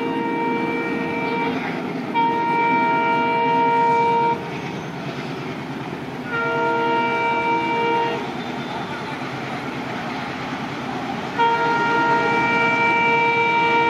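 Horn of an ALCO WDG3A diesel locomotive sounding repeatedly as its train runs through a station: a multi-note blast that stops about a second and a half in, two more blasts of about two seconds each, and a long blast starting near the end, over the steady rumble of the passing train.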